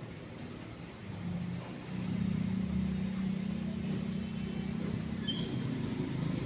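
Low, steady engine hum that grows louder about two seconds in.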